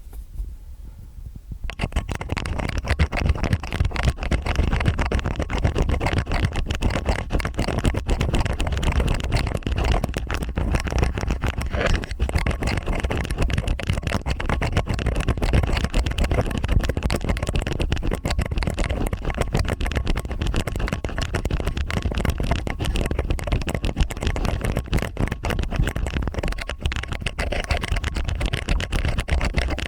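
Two stainless-steel ear picks scraping and rubbing in both ears at once. The sound is dense, close-up scratching with a deep rumble underneath, and it starts about two seconds in.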